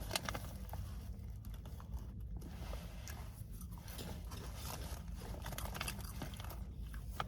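A person chewing and crunching cheese-flavoured popcorn close to the microphone: a steady run of small crisp crunches.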